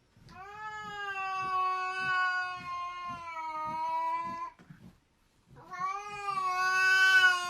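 A cat yowling: two long, drawn-out meows, each about three to four seconds and held at a steady pitch that sags slightly, with a short pause between them.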